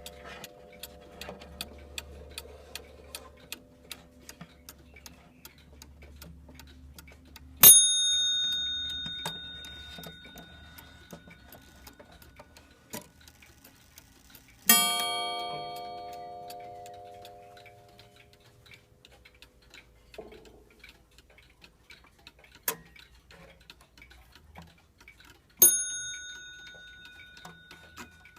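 Waterbury pendulum mantel clock ticking steadily, with three single strikes, about 8, 15 and 26 seconds in, each ringing out and fading over a few seconds. The middle strike is lower and fuller than the other two, and there is one sharp click a little after 22 seconds.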